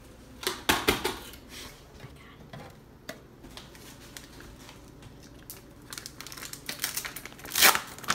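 Kitchen handling noise: a few sharp knocks and clicks as ingredients go into a plastic blender jar, then crinkling and rapid clicking of a stand-up snack pouch being handled. The crinkling grows loudest near the end.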